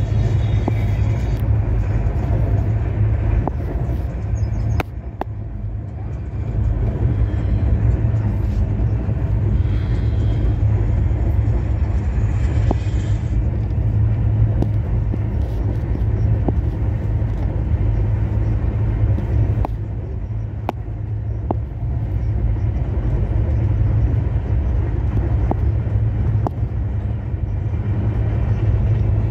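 Indian Railways express train running at speed, heard from inside the coach: a steady low rumble of wheels on track and rushing air, with occasional sharp clacks. It dips briefly in loudness about five seconds in.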